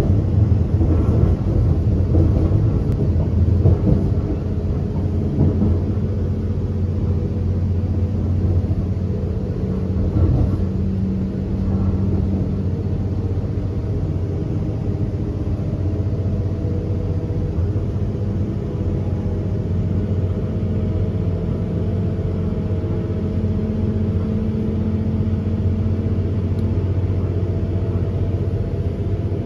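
Inside a moving diesel passenger train: the steady rumble of the running train with a low engine drone, whose pitch rises slowly in the second half.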